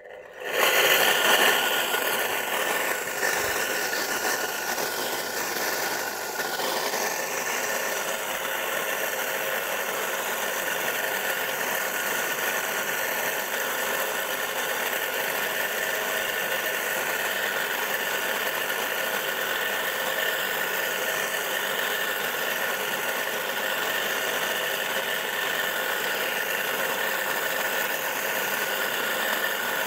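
Single-phase, capacitor-start electric motor of a homemade wheeled cultivator starting up and then running steadily under load as it cuts a furrow in the soil, a steady multi-tone whine over a noisy rush.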